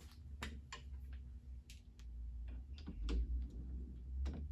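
Light, irregular clicks and knocks of an aluminium surface-grinder bed being handled and slid onto its V-groove bearings, metal tapping on metal, over a faint low hum.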